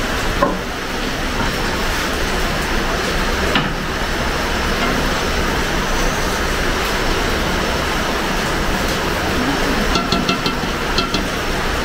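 Rain falling steadily, a dense even hiss, with a few faint clicks near the end.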